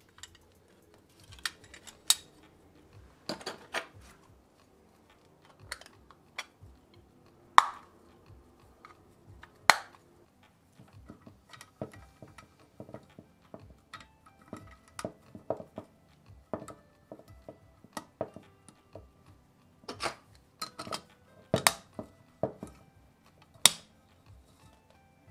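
Plastic and metal parts of a diecast model car being handled and pressed together by gloved hands: irregular small clicks, taps and clatter, with a few sharper clicks.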